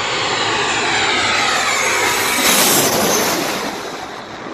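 Twin-engine jet airliner on landing approach passing low overhead. The engine noise swells to a peak about two and a half seconds in, its whine falling in pitch as it passes, then eases away.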